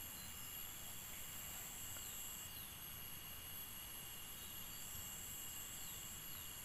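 Insects trilling steadily, several unbroken high-pitched tones sounding at once, with a few faint short chirps over them.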